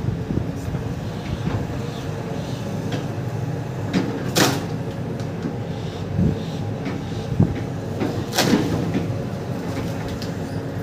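Excavator's diesel engine running steadily under load as its bucket pushes against a big tree, with a few knocks and two loud, sharp bursts of noise about four and eight seconds in.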